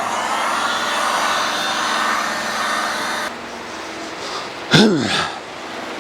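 Electric heat gun blowing steadily as it warms the rubbery door membrane so it sticks back, switched off about three seconds in. About a second and a half later, one brief loud sound sweeping quickly down in pitch.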